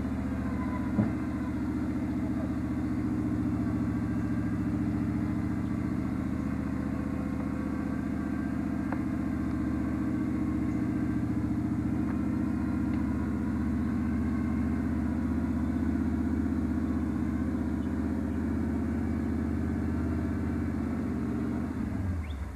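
Jeep CJ's stock Chevy 350 V8 running at a steady speed, with a short sharp click about a second in.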